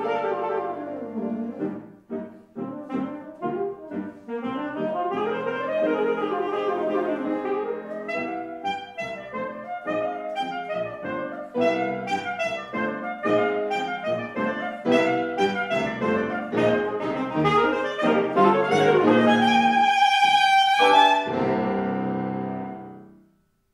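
Alto saxophone with grand piano accompaniment playing the closing bars of a classical piece: fast runs up and down, then a loud held high note and a final chord that stops shortly before the end.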